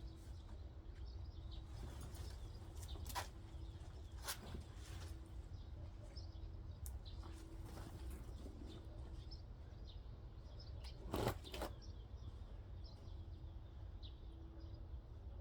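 Quiet outdoor ambience: a steady low rumble with a few short knocks from hands-on work, the loudest about eleven seconds in, and faint bird chirps scattered throughout.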